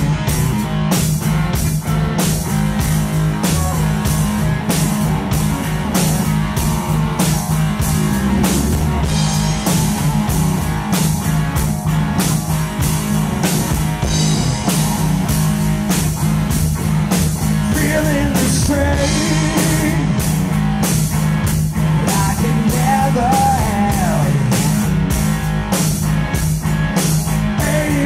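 Live rock band playing: electric guitar over a drum kit keeping a steady beat, loud throughout.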